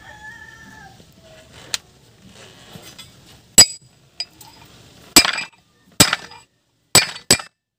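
Hammer striking a steel wrench laid across a new spindle bearing, driving the bearing into a Suzuki Multicab's brake disc hub: about five hard metallic clanks with a ringing tail, roughly a second apart in the second half, plus a few lighter taps. A rooster crows at the very start.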